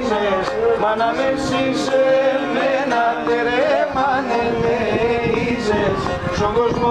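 Pontic lyra (kemençe) playing a Pontic Greek folk tune, a continuous wavering melody.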